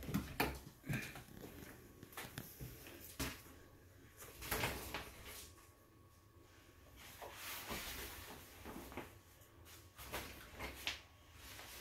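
Scattered light knocks, clicks and rustling as a child rummages in a tiled shower stall, pushing the shower curtain aside.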